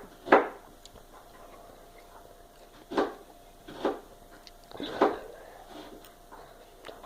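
A person chewing and biting into pieces of pineapple, with a few short wet mouth sounds spaced a second or so apart over a faint steady hum.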